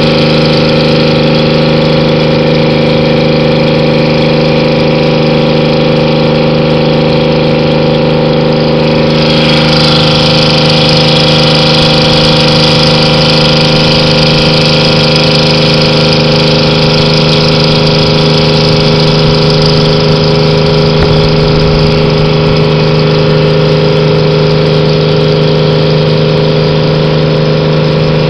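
Lobster boat's engine running steadily under way, a constant loud drone that holds its pitch. About nine seconds in, a rushing hiss rises over it and stays.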